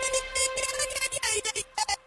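Electronic dance music from a DJ mix in a breakdown: the bass drops away and chopped, stuttering high sounds play, breaking into short gaps near the end.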